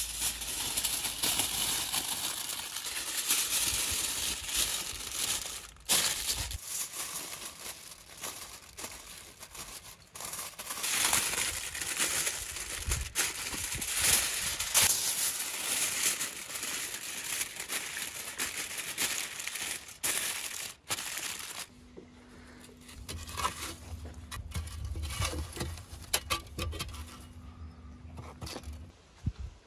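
Aluminium foil crinkling and rustling as it is wrapped and pressed around a whole pumpkin, dense and continuous for about twenty seconds. Then it goes quieter, with scattered scrapes and clicks as a poker rakes embers in a clay pit oven.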